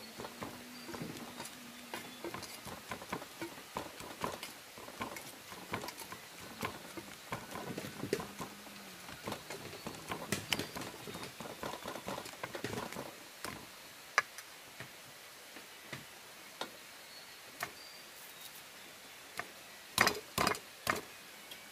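Irregular light clicks and knocks, denser in the first half, with a cluster of louder knocks near the end.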